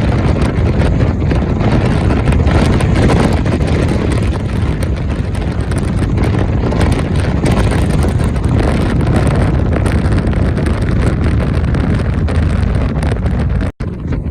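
Blizzard wind of about 50 mph buffeting the microphone: a loud, steady rumble with hiss. It cuts out for an instant near the end and comes back softer.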